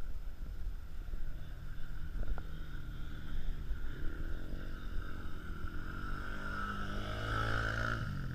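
Polaris Outlaw 90 youth quad's engine running under a low rumble, its pitch climbing from about halfway through as it speeds up.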